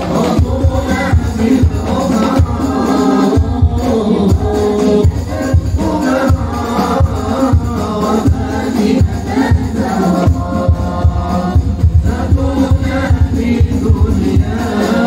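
A group of men singing sholawat, Islamic devotional songs praising the Prophet, together into microphones over a steady hand-percussion beat.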